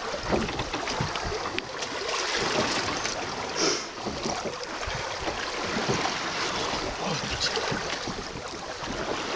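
Choppy sea water slapping and lapping against the side of a small boat, with wind buffeting the microphone.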